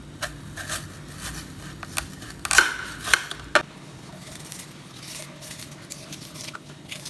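Short clicks, knocks and scrapes of kitchen utensils being handled while food is prepared, the loudest about two and a half seconds in.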